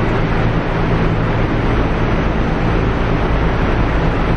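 Steady loud rushing noise with a low hum from the fans and refrigeration in a warehouse store's cold section.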